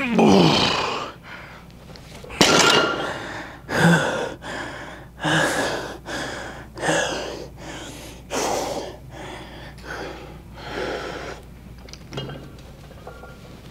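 A person breathing hard while lifting weights: a forceful exhale or gasp about every second and a half, nine or so in all, getting weaker towards the end. The first breath carries a short grunt.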